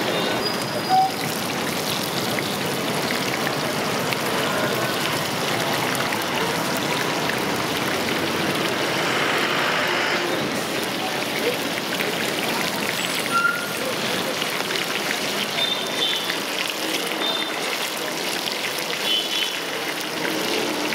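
Hot oil in a wide iron wok sizzling and crackling steadily as batter-coated bajji fritters deep-fry. It gets briefly louder about halfway through as freshly dipped pieces go into the oil.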